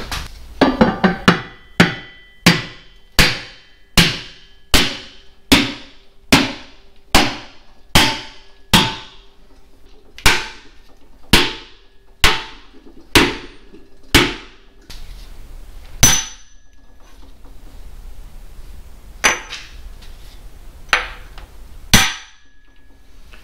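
Hammer blows through a wooden block, driving a freezer-chilled dry cylinder sleeve into a 1942 Farmall M engine block. There is a steady run of about twenty sharp strikes, roughly one a second, then four more blows spaced a few seconds apart.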